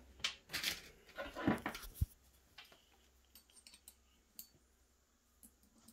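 Light clicks and knocks as drawer-slide hardware and screws are handled by hand, with a sharper knock about two seconds in. After that come only a few faint ticks.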